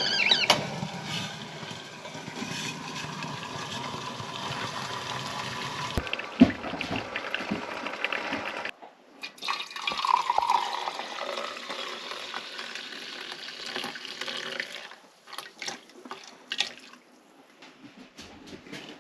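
Water pouring or running into a container, a steady splashing rush, which stops sharply about nine seconds in; after it come scattered clicks and knocks.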